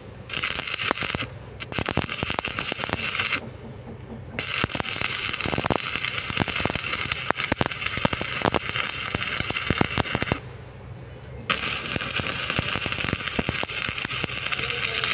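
Electric arc welding: the arc crackles and hisses in four runs, stopping briefly between them, with the longest run lasting about six seconds through the middle.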